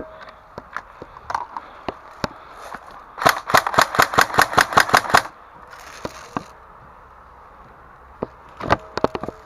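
Airsoft guns firing: scattered single shots, then a quick string of about ten evenly spaced shots, and a few more single shots near the end.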